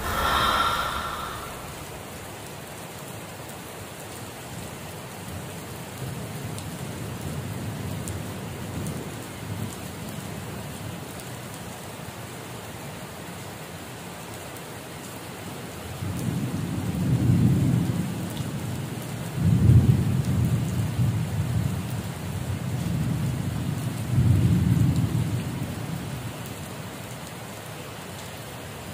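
Steady rain hissing on wet ground, with thunder rumbling in several deep rolls through the second half.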